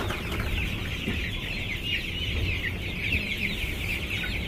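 A flock of four-week-old chicks peeping continuously, many short, high, falling chirps overlapping.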